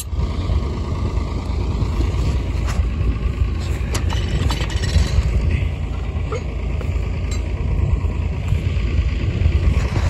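Motor vehicle engine running steadily, with a few short knocks and clanks.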